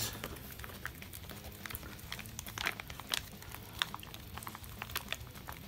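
Crinkling and crackling of an olive-green plastic retort food pouch being handled and squeezed in the hands, in many short irregular crackles.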